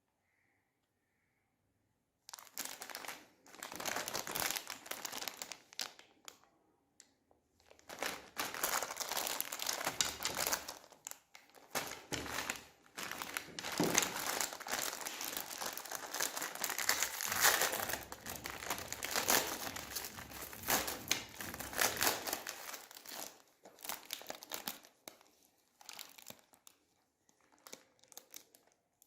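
Plastic candy packaging crinkling and tearing as it is handled and opened by hand. It starts after about two seconds of silence, comes in irregular spells that are densest through the middle, and thins out near the end.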